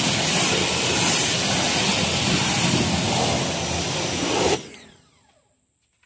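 Pressure washer running and spraying, then switched off about four and a half seconds in, its motor winding down with a falling pitch.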